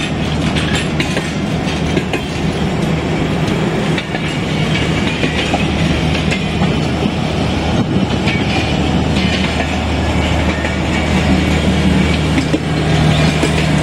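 Pakistan Railways passenger coaches rolling past, wheels clattering steadily on the rails, with a steady low hum from the power van's generator set growing louder near the end as the van comes close.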